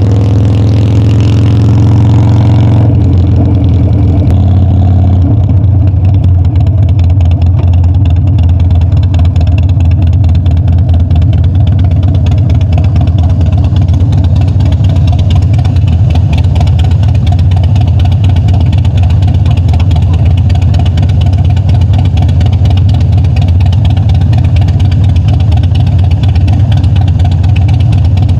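Harley-Davidson Dyna V-twin motorcycle engine running on the road. Its pitch rises over the first couple of seconds, then the sound changes suddenly about three seconds in and carries on steady and rough, heavy in the low end.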